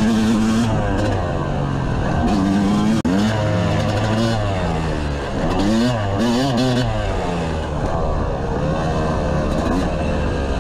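Yamaha YZ250 single-cylinder two-stroke dirt bike engine under riding load, revving up and down again and again as the throttle is opened and closed through the track's jumps and turns. The sound cuts out for an instant about three seconds in.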